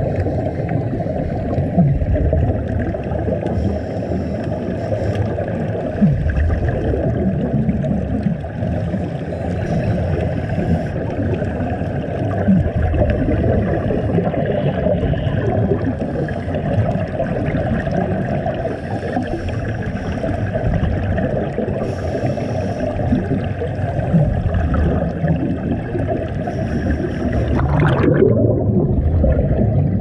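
Muffled underwater rumble and gurgling of scuba divers' exhaled regulator bubbles, heard through the camera underwater, with a cloud of bubbles passing the camera near the end.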